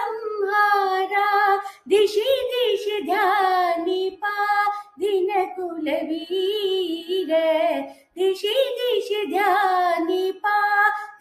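A woman singing solo with no accompaniment, in four phrases whose pitch bends and wavers, with short breaths between them and the longest pause a little after eight seconds in.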